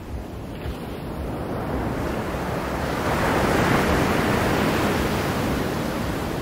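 Small waves breaking on a sandy beach. A wave swells to a crash about halfway through and then fades as it washes back.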